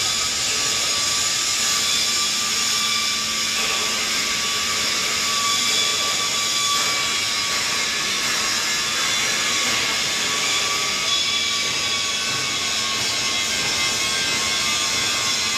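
Steady, loud whir and hiss of running industrial machinery, with several constant high whining tones.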